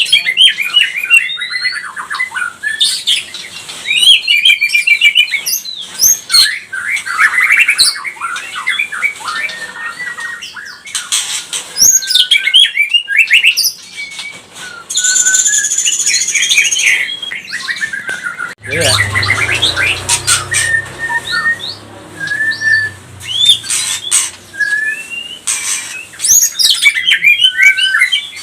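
White-rumped shama (murai batu) singing a loud, varied song of clear whistles and fast chattering phrases, with a harsh buzzy phrase past the middle. A low hum runs underneath for a few seconds after that.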